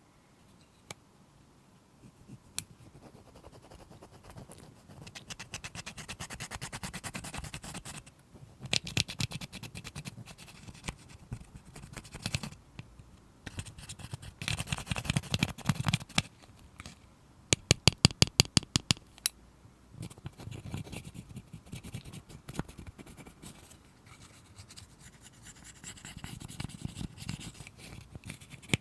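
Close-miked crackling and scraping as slime and cosmetic products are worked by hand, in uneven stretches, with a quick run of sharp clicks a little past the middle.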